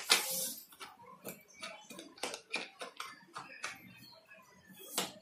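Hands handling the metal frame and fittings of a pediatric cerebral palsy wheelchair: a loud scuff at the start, then an irregular run of small clicks, taps and rattles.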